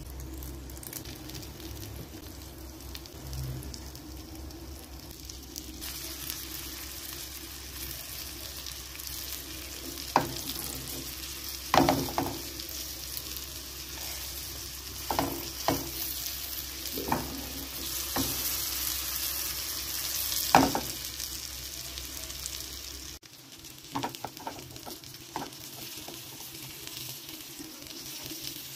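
Flour-dredged mackerel pieces frying in oil in a pan: a steady sizzle, broken by several sharp clicks and knocks in the middle stretch, the loudest two about twelve and twenty seconds in.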